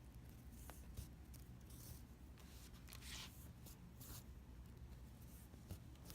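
Near silence over a low hum, with faint, brief scratching and rustling sounds, a few of them spread out, the clearest about three and four seconds in.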